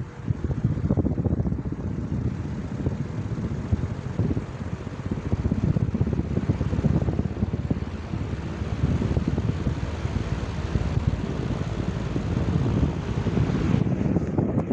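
Venti-Delta Premium 60 cm pedestal fan running, its strong air stream buffeting the microphone as a gusty, uneven rumble of wind noise.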